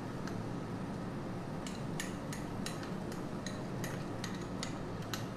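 Light glassy clinks, about three a second from near two seconds in: a small glass bowl being tapped and shaken to empty grated cheese into a pan of gravy. A steady low hum runs beneath.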